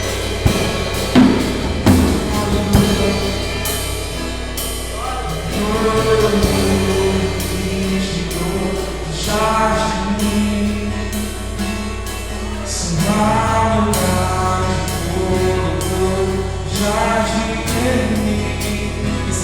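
Live worship music: a male voice singing a slow song over acoustic guitar and a drum kit keeping time with cymbals, with a few stronger drum accents in the first few seconds. Captured through a mobile phone's microphone.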